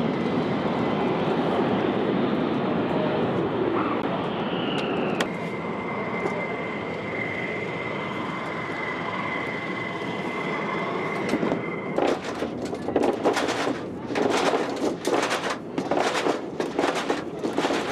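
Steady rumble and high whine of turbine machinery running on an airfield flight line. From about twelve seconds in, a rapid run of clicks and knocks from hand tools worked on the jet's fuselage panels.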